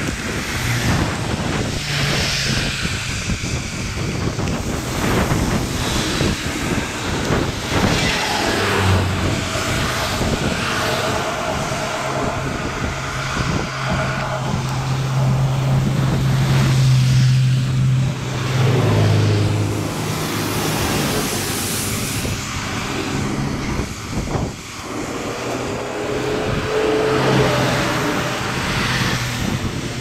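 Wind buffeting the microphone and tyres hissing on a wet road while riding in the rain. A steady low engine hum runs for several seconds in the middle and drops in pitch shortly before it fades.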